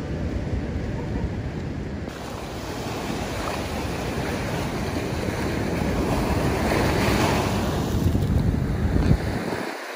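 Ocean surf breaking on a reef, with wind buffeting the microphone in a low rumble. It grows louder toward the end, then the low rumble cuts out suddenly.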